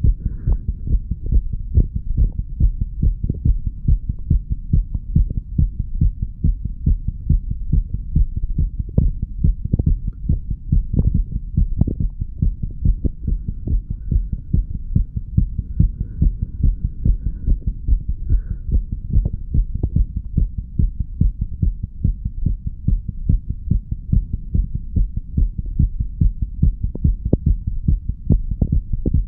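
Human heartbeat recorded through the chest, a continuous regular train of low thuds beating steadily. It is the heart of a person under the influence of medical marijuana and tobacco.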